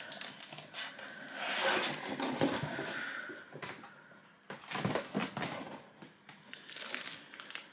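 Rustling of paper and packaging while a book is handled, with a few short knocks and taps about five seconds in and again near the end.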